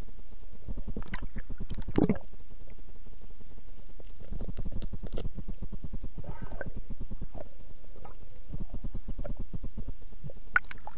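Muffled underwater noise picked up by an action camera in its waterproof housing: a low rumble with clusters of crackling knocks and bubbly gurgles as the diver handles a speared fish, loudest about two seconds in.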